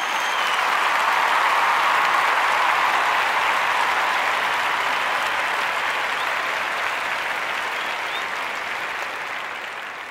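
Crowd applauding and cheering, a dense even clatter of clapping with a whistle or two. It swells over the first couple of seconds, then slowly fades out.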